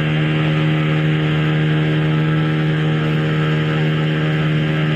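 Tour boat's engine running steadily while underway, a constant low hum with no change in pitch.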